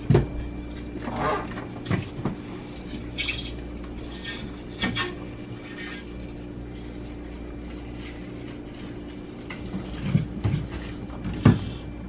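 Scattered knocks, clicks and light scrapes as a freezer-organizer rail and its gray installation guides are handled and set against the wall of a chest freezer, over a steady low hum.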